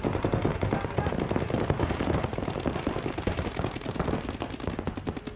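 Several paintball markers firing rapid, overlapping streams of shots. The pops come many to the second and ease off slightly near the end.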